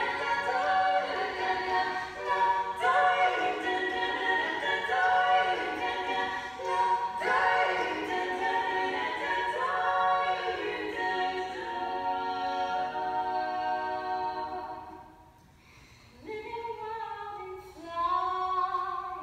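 Barbershop-style a cappella harmony singing, several voices in close chords, breaking off briefly about fifteen seconds in before the voices come back in.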